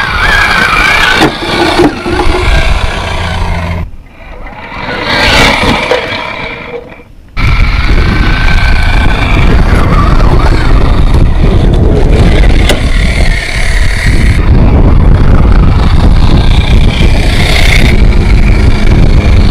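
Radio-controlled Tamiya Toyota Tundra High-Lift crawler, its Tekin 35-turn brushed motor and drivetrain running as it drives over rock. The sound drops away about four seconds in and comes back abruptly a few seconds later, then runs steadily.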